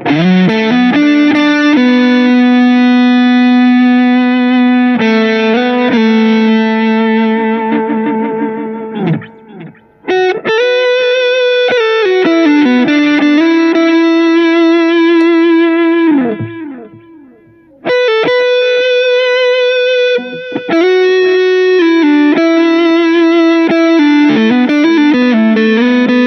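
Smiger LG2 H electric guitar playing a distorted lead: long held single notes with bends and vibrato. Twice, about nine and sixteen seconds in, a note dives steeply down in pitch and dies away before the playing resumes.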